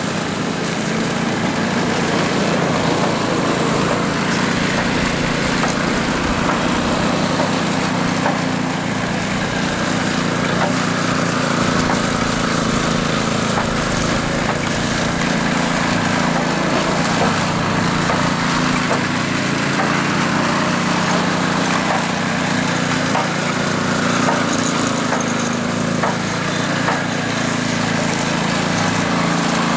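Walk-behind power trowel's small petrol engine running steadily as the machine smooths and finishes fresh concrete, with faint scattered ticks over the drone.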